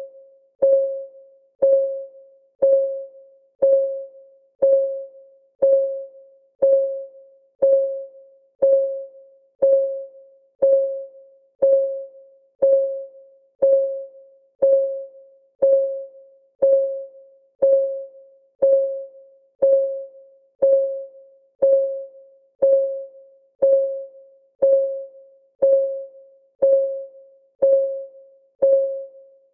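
Countdown timer's synthetic clock tick: one short pitched tick about once a second, each with a sharp click and a quick fading tone, in a perfectly even rhythm.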